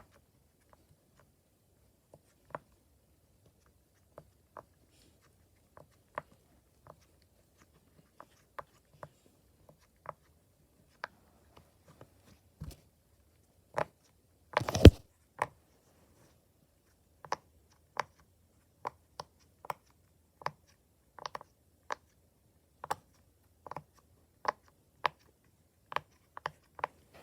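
Silicone Pop It fidget bubbles being pressed, making short, irregular pops that come more often in the second half. About fifteen seconds in there is one louder thump with a brief rustle, which is the loudest moment.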